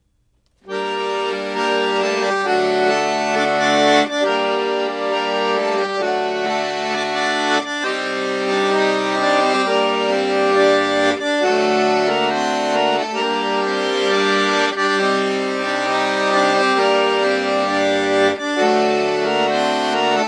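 Hohner piano accordion playing an instrumental introduction, starting about a second in: a melody on the treble keys over a bass-and-chord accompaniment from the bass buttons.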